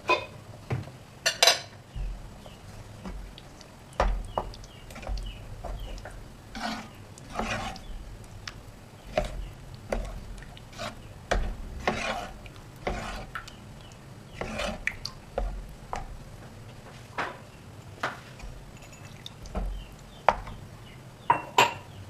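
A metal spoon or spatula stirring in a cooking pan, with irregular scrapes and clinks against the pan.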